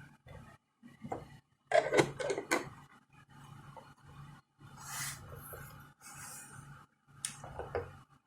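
Parts of a 3D-printed model milling machine clicking, knocking and rubbing as it is worked by hand. There is a quick run of sharp clicks about two seconds in, a brief scrape around five seconds, and more clicks near the end, over a faint hum that cuts in and out.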